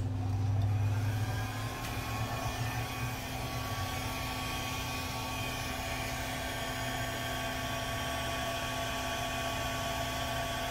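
Handheld hair dryer running on its low setting, a steady motor whine over the rush of air. It comes up to speed in the first couple of seconds, then holds steady.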